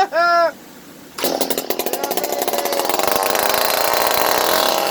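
Stihl 025 two-stroke chainsaw engine catching about a second in and running fast on a small squirt of fuel put into an otherwise dry engine, with a fresh spark plug fitted: the engine is alive and runs.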